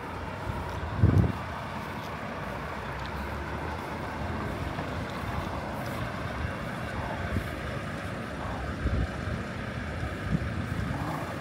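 Road traffic running by on a busy street, with wind buffeting the microphone, hardest about a second in.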